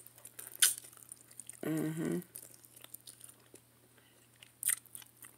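Close-up chewing of a mouthful of chicken and rice, with soft wet mouth clicks and a short hummed "mm" about two seconds in.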